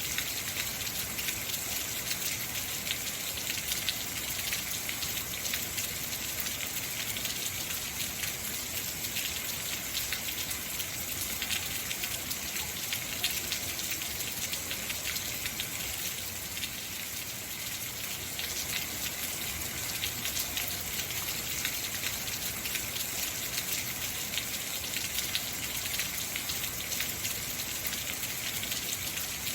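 Heavy rain falling steadily, a dense even hiss of drops pattering on surfaces.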